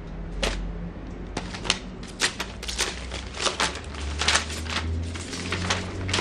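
Sharp, irregular clicks and taps in quick succession, a few each second, over a low steady hum.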